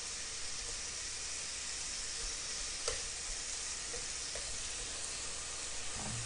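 Slices of pork belly sizzling steadily as they fry in a frying pan, with a faint tap of the metal tongs against the pan about three seconds in.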